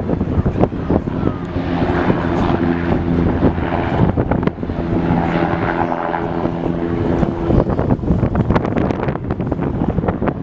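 Propeller aircraft engine droning steadily overhead, heard through gusts of wind buffeting the microphone.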